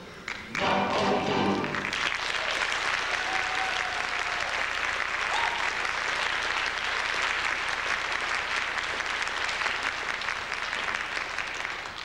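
The last notes of the dance music end about two seconds in, followed by an audience applauding steadily.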